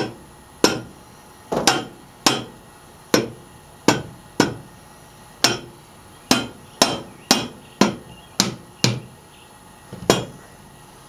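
A hammer tapping repeatedly on the cast-iron cylinder head of a Model A Ford engine to seat it on its new head gasket. There are about seventeen sharp strikes at uneven spacing, roughly two a second, each ringing briefly. The strikes sound solid, a sign the head is sitting down properly.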